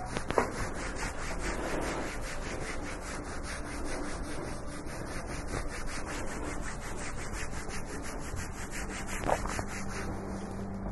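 Hands rubbing firmly over skin in a massage, a steady friction noise with a fast, even rhythm, with a brief click about half a second in and another near the end.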